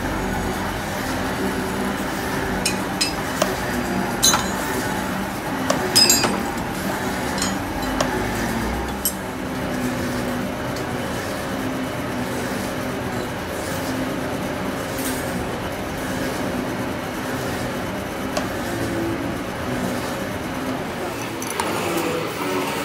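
Workshop machinery running steadily with a low drone, with a few sharp metallic clinks of tools or steel parts being handled, the loudest about three, four and six seconds in.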